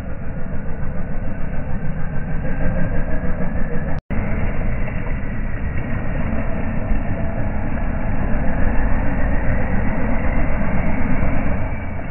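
Lifted Toyota Hilux LN106's diesel engine running at low speed under load as the truck crawls through deep mud on large mud tyres. The sound cuts out for an instant about four seconds in.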